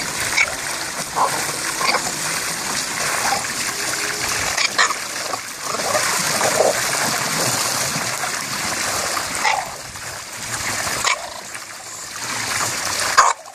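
Water pouring steadily over a hot tub's spillway into a swimming pool, with a few short splashes. Now and then an English bulldog standing in the tub gives short grumbles.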